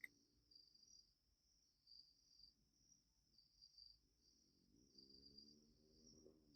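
Faint crickets chirping in a steady, pulsing high trill. A single sharp click comes right at the start, and a faint low hum swells near the end.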